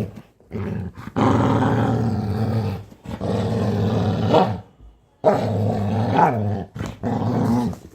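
Labrador growling in long, low, drawn-out rumbles, three of them with short breaks between, like an angry lion.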